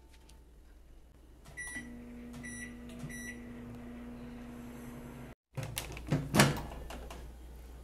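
Microwave oven keypad beeping three times, and the oven starting up with a steady low hum as it runs its three-minute cycle at full power. The hum stops abruptly about five seconds in, followed by a few loud knocks.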